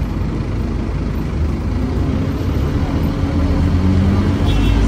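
Scania OmniCity bus's diesel engine running, heard from inside the passenger saloon as the bus moves, a steady low hum with road noise; near the end the engine note grows louder and heavier as it pulls harder.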